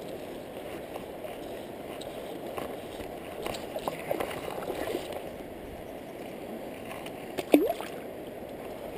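Steady rush of shallow stream water flowing past. Near the end, a single sharp splash at the surface right by the angler's rod.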